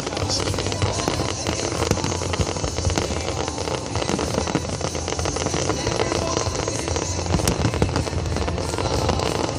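Fireworks display: a dense, continuous barrage of crackling and popping bursts with deep booms underneath, and music mixed in.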